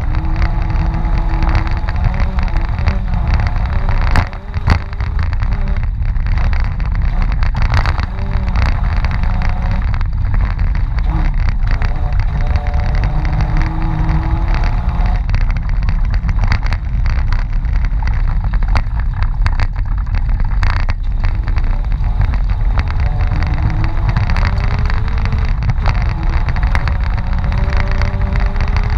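Mitsubishi Pajero engine driving hard through snow, its pitch rising and falling with the throttle over a heavy rumble, with occasional sharp knocks.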